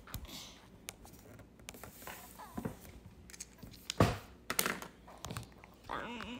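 Quiet room with faint rustling and scattered small handling clicks, with a sharper knock about four seconds in and a few more clicks after it.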